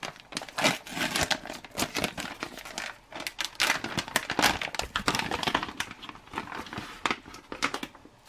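Foil ration pouch crinkling loudly in the hands as it is pulled open, a dense run of irregular crackles that thins to a few scattered clicks near the end.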